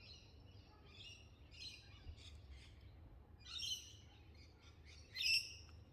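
Birds calling: a string of short calls, each with several stacked tones, the two loudest about three and a half and five seconds in.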